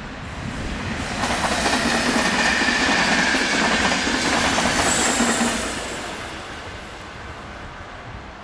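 Train led by an E.464 electric locomotive passing at speed over the station's switches: wheels clattering over the points with a thin squeal. It swells about a second in, holds for some four seconds, then fades away.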